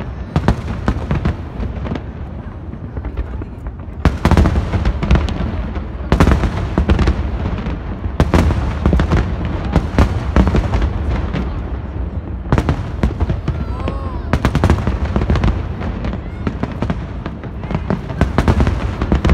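Fireworks going off in rapid succession: a dense run of sharp bangs and crackles over a low rumble, with heavier bursts every couple of seconds.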